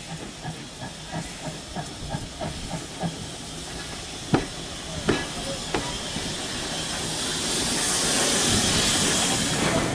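Ex-GWR 0-6-0 pannier tank steam locomotive moving slowly: soft exhaust chuffs about three a second, then three sharp clanks, and near the end a loud steam hiss that swells as the engine draws alongside.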